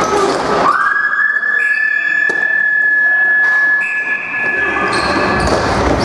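A loud steady tone from an arena horn or buzzer, sliding up in pitch as it starts and then held for about five seconds before it cuts off.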